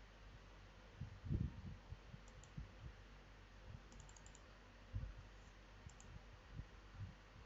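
Faint computer mouse clicks, some in quick pairs like double-clicks, among soft low thumps, the loudest about a second in.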